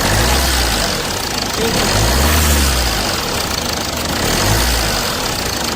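Jeep Compass diesel engine running and lightly revved a few times, rising and falling in pitch. With a new alternator pulley fitted it runs without the earlier vibration noise.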